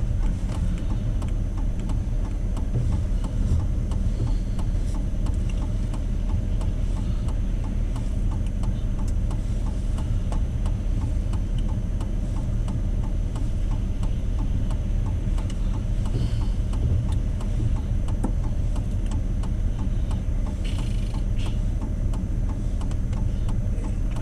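Pickup truck engine running with a steady low rumble heard inside the cab, with an even ticking throughout, typical of a turn-signal flasher.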